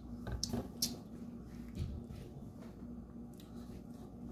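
A few soft clicks and light handling noises from a plastic drink bottle being held and set down on a wooden table, over a faint steady hum.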